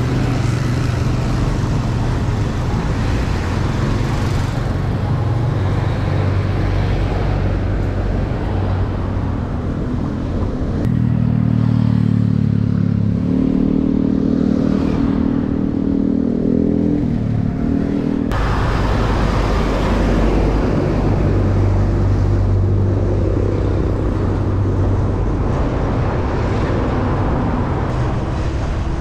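Road traffic while riding: motor vehicle engines running with a steady drone over road and wind noise. A higher-pitched engine drone comes in abruptly about a third of the way through and cuts off just as abruptly past the middle.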